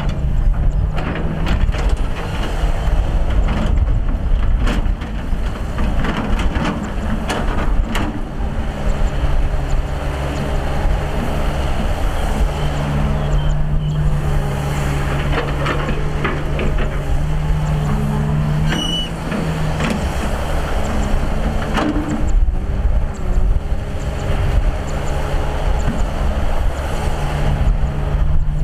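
Excavator's diesel engine running under load, with a steady low drone that grows stronger for several seconds in the middle. Frequent knocks and clanks come through from the digging.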